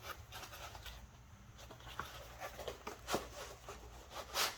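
Faint handling noises of unpacking: scattered light clicks and rustles of packaging, with a louder rustle near the end.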